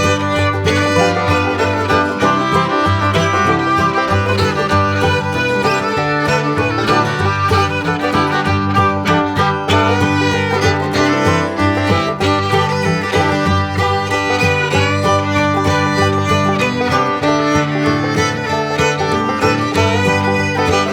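Upbeat bluegrass-style music with fiddle, banjo and guitar.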